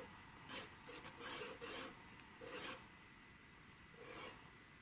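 Mitsubishi Hi-Uni HB pencil scratching on Kent paper in about six short, light strokes: the first faint guidelines of a sketch. Most of the strokes come in the first three seconds, with one more near the end.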